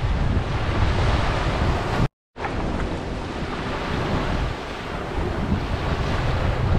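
Small waves washing onto a sandy beach, with wind rumbling on the microphone. The sound cuts out completely for a moment about two seconds in.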